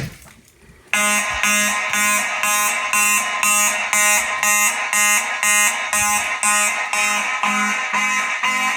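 Simplex mechanical fire alarm horns sounding in march time, about two buzzy blasts a second, starting about a second in. This is the general alarm set off by a manual pull station.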